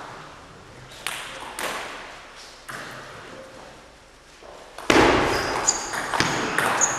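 Celluloid table tennis ball clicking sharply off bats and table in a serve and rally, in a reverberant hall. About five seconds in, a louder rush of noise starts and brief high squeaks come through near the end.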